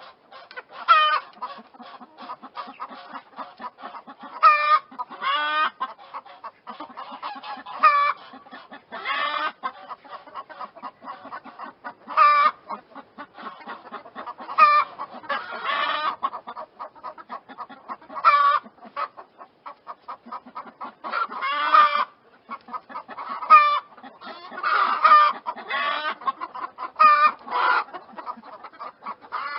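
Chickens clucking, with a loud, short pitched call breaking out every one to three seconds over a steady stream of low, quick clucks.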